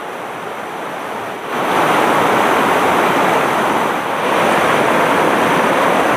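Rushing water of a rocky river pouring through rapids between boulders, a steady rush of white water that gets louder about a second and a half in.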